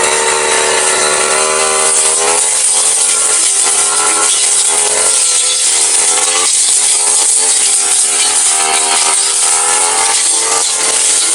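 Brush cutter engine running at high revs, steady at first, then its pitch dipping and recovering again and again as the spinning blade cuts into grass.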